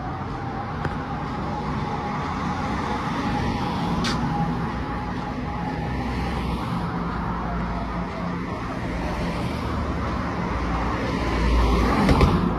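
Air raid siren holding one steady wailing tone, dipping slightly in pitch midway, over the rumble of street traffic, which swells louder near the end.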